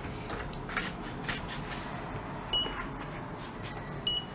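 Lift beeping twice while its doors are held open: two short high beeps about a second and a half apart, over a steady low hum. A few soft footsteps in the first second and a half as someone steps into the car.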